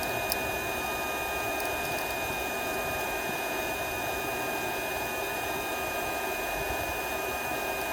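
Handheld induction heater running steadily while it heats a seized oxygen-sensor nut: an even fan-like whoosh with a thin, steady high-pitched whine.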